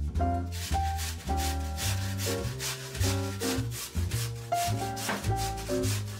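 Background music: pitched instrument notes over a moving bass line, with steady, evenly spaced percussion strokes.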